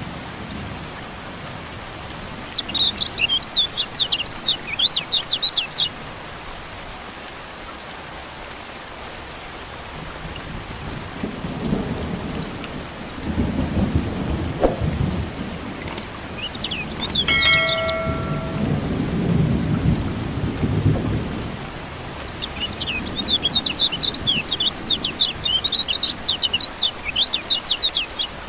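Steady rain with a low roll of thunder through the middle. A kecial kuning white-eye sings a rapid, high, chattering twitter twice, a few seconds near the start and again near the end.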